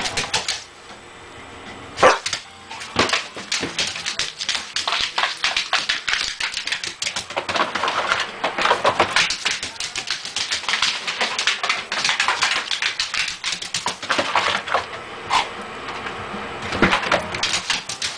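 German Shepherd puppy in wild play: a fast, dense clatter of scrabbling and clicking, starting about two seconds in, with short dog noises mixed in.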